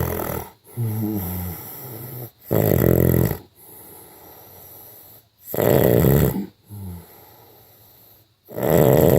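A man snoring in his sleep: three loud snores about three seconds apart, with quieter, wavering breaths between them.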